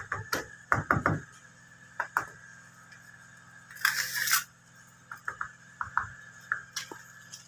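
Knocks and light clinks of a hand tool working cement, with one short scrape about four seconds in, as cement is laid where a utility box will be fixed.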